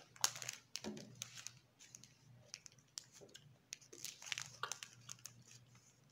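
Irregular crisp crackling and crunching with short clicks, close to the microphone: a chocolate snack being eaten, with its wrapper crinkling.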